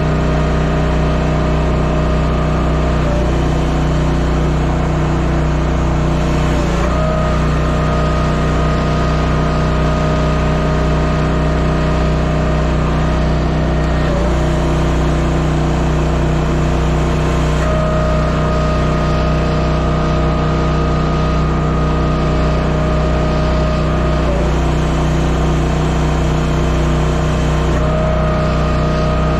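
Timberwolf Alpha 6 hydraulic log splitter's engine and pump running steadily, the tone shifting every few seconds as the splitter ram cycles through a split.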